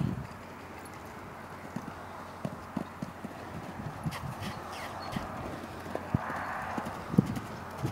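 Hoofbeats of a young feathered-legged horse trotting on arena sand: soft, dull thuds at an uneven pace.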